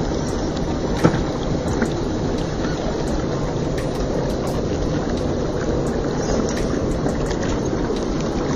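Shallow river water running over rocks close by, with wind rumbling on the microphone. Scattered light clicks throughout, and a sharp knock about a second in.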